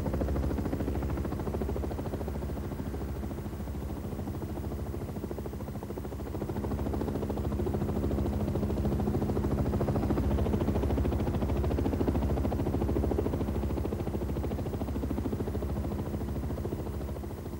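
UH-1 Huey helicopter in flight: a steady drone of the turbine and main rotor, with an even, low rotor beat.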